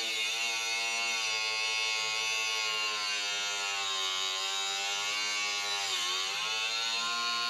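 Angle grinder running with a steady high whine as it grinds off the metal prongs of an old aerial bracket. The pitch dips briefly about six seconds in as the disc bites, then comes back up.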